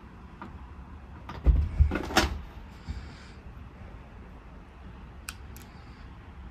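Two heavy thumps about a second and a half in, quickly followed by a short rattling clatter, then a couple of light clicks near the end, over a steady low hum.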